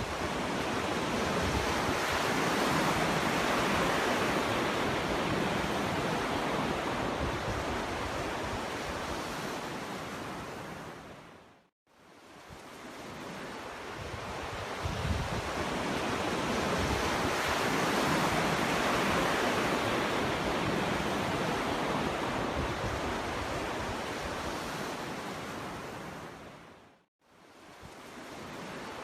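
Sea waves breaking on a beach, each wash of surf swelling over several seconds and then ebbing. Twice, about twelve seconds in and near the end, the sound dies away to silence for a moment before building again.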